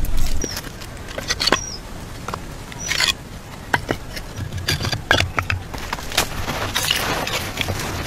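Clay tiles clicking and knocking against each other as they are set down and stacked by hand, with a few short high bird chirps in the first seconds. Near the end, a soft rustling hiss as loose soil is scattered.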